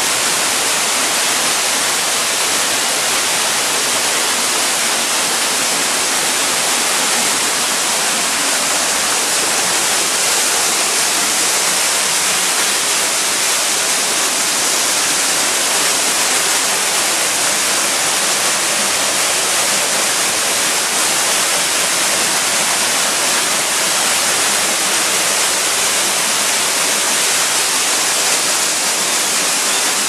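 Mountain waterfall cascading down a narrow rock gorge close to the microphone: a loud, steady rush of falling water.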